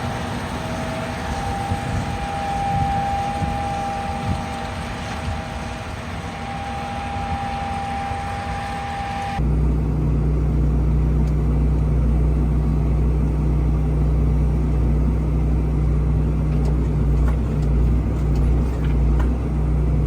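Farm tractor engine running steadily with a whine over it. About nine seconds in the sound cuts abruptly to a deeper, steady engine drone.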